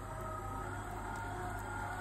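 Wilfa Probaker stand mixer's motor running as its dough hook kneads sourdough dough: a steady low hum with a faint whine over it.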